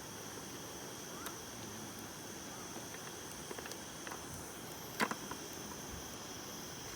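Steady chorus of insects chirping, with a few light clicks and one sharper click about five seconds in.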